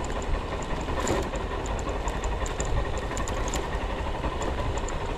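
A car or other road vehicle running along the road, heard from inside the cabin: a steady engine and road rumble with many small rattling clicks.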